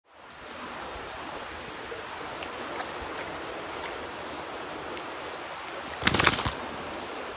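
Steady outdoor hiss. About six seconds in, a short loud burst of rustling and crackling as a freshly landed fish flops on the dry, leaf-littered dirt bank.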